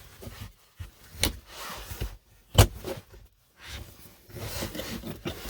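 Plastic dashboard trim being handled and pressed into place, with two sharp clicks as the light sensor and speaker grille snap in; the second click, about two and a half seconds in, is the louder.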